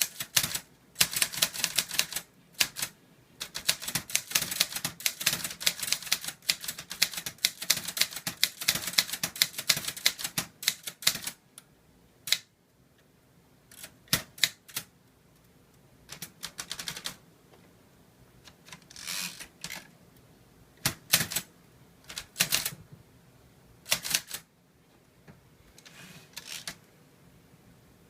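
Korean (Hangul) typewriter being typed on, its typebars striking through carbon paper in place of an ink ribbon. It starts with a fast, dense run of key strikes for about eleven seconds, then slows to scattered single strikes with a few short rustling or ratcheting sounds in between.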